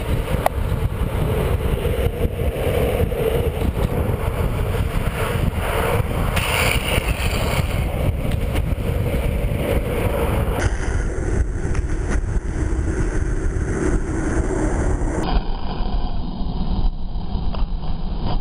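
Longboard wheels rolling on asphalt at downhill speed, with wind buffeting the microphone: a steady, loud rushing noise.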